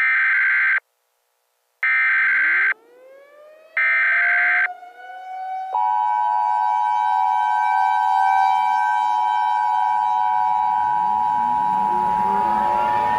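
Emergency Alert System opening: three short bursts of harsh data tones, each under a second long, about a second apart. Then a civil defense siren winding up in rising wails, and from about six seconds in the steady two-tone EAS attention signal sounding over the siren.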